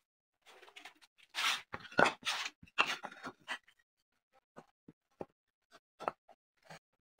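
Light scrapes and soft knocks of wooden panel pieces being handled and set against each other on a plywood work surface, busiest in the first few seconds, then only a few scattered small taps.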